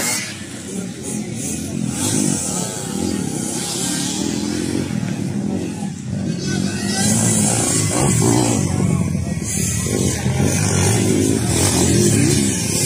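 Several motocross dirt bikes racing on a dirt track, their engines revving up and down as the riders accelerate and back off.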